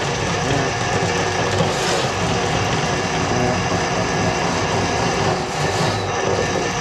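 Electric drain-cleaning machine running steadily, its motor turning the cable that is fed into a kitchen sink drain line clogged with grease.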